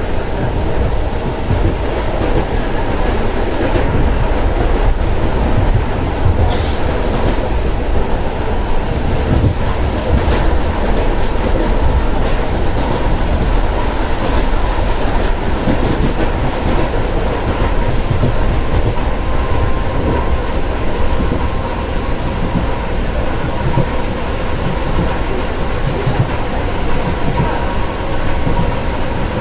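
Moving electric passenger train heard from inside the carriage: a steady running rumble with the wheels clacking over the rail joints, a faint steady hum above it, and an occasional sharp click.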